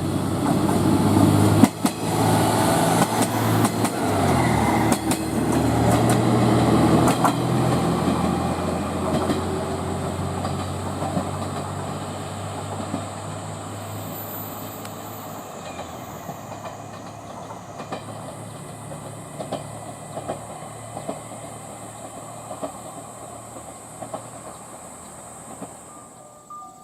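A train running past, its wheels clacking over rail joints. It is loudest in the first several seconds, then fades slowly as it draws away.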